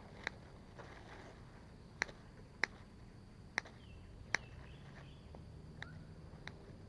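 Scissors snipping through slices of white bread in a plastic bag: about seven sharp, unevenly spaced clicks of the blades closing, the last two fainter.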